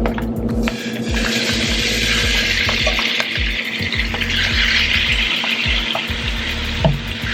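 Chicken breast tenderloins sizzling in hot olive oil in a skillet. The sizzle starts about a second in.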